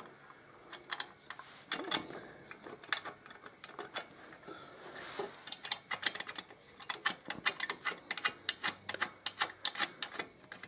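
Ratchet wrench clicking as a bolt is wound in on the rear exhaust mounting bracket: a few scattered clicks, then a quick run of clicks, several a second, over the second half.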